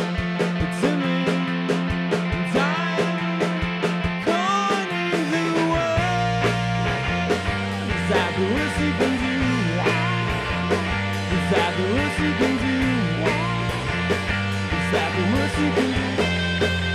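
Live rock band playing: electric guitars, bass guitar and drums, with two voices singing.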